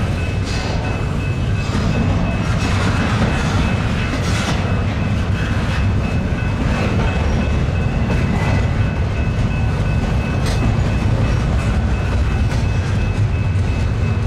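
Long intermodal freight train's cars rolling past: a steady, loud rumble of steel wheels on rail with faint clicking over the rail joints. A thin, steady high-pitched tone runs over the rumble.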